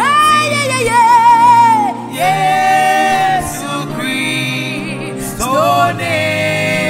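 Live Ghanaian gospel worship music: a lead singer holds long notes with vibrato in phrases of one to two seconds, over a steady instrumental accompaniment.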